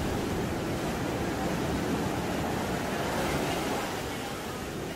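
Ocean surf breaking and washing up the sand, a steady rush of foaming water with a swell about three seconds in.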